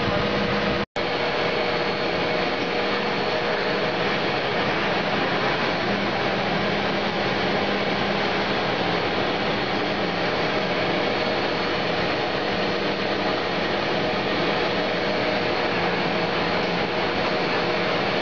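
Steady machine noise of a drip irrigation pipe blowing machine running, a blower-like rush with a faint steady hum. It cuts out for a split second about a second in.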